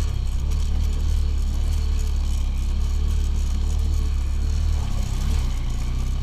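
Off-road motorcycle engine running steadily, with a deep, even rumble.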